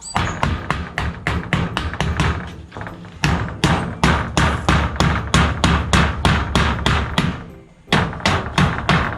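A hammer driving nails into corrugated metal wall sheeting: quick runs of sharp blows at about four a second, with short pauses between runs, over background music.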